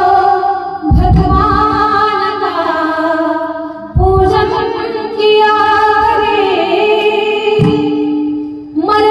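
A woman singing a Marathi devotional song with a long, held melody, accompanied by deep drum strokes about a second in, at about four seconds and near the end.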